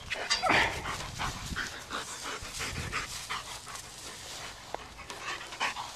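Black German Shepherd dog panting close up, a quick run of rhythmic breaths, winded from repeated fetch retrieves.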